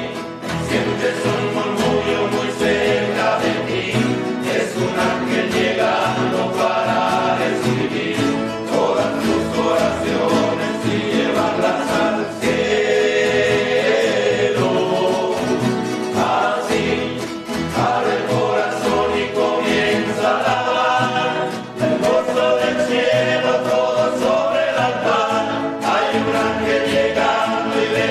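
A small group of men singing a Spanish Christian hymn together, accompanied by two strummed acoustic guitars.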